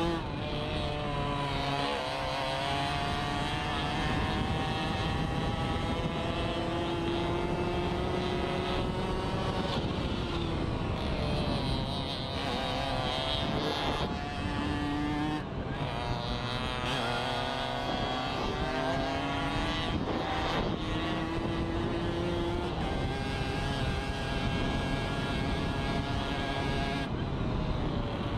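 Racing moped's small engine heard onboard, revving hard with its pitch climbing and dropping back again and again as the rider accelerates out of corners and backs off, over a steady rush of wind and road noise.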